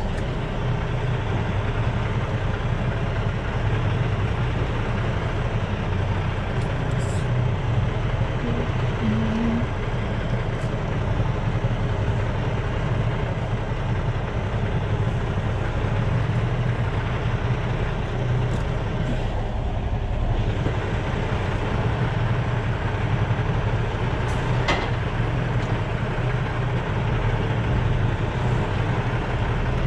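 Semi truck's diesel engine running steadily at low revs, heard from inside the cab.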